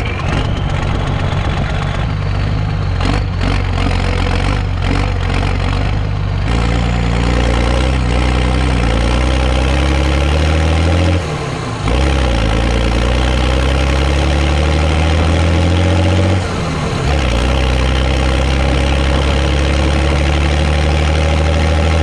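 The 3690 tractor's engine pulling on the road and gathering speed, its pitch climbing steadily. The engine note dips briefly at two gear changes, about 11 and 16 seconds in, then climbs again.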